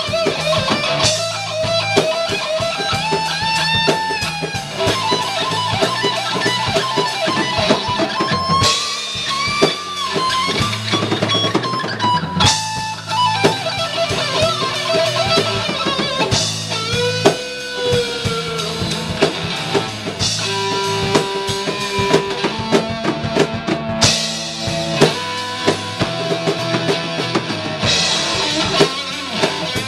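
Live rock trio playing a slow blues instrumental passage. Electric guitar plays lead lines with bent notes over bass guitar and drum kit, with no vocals.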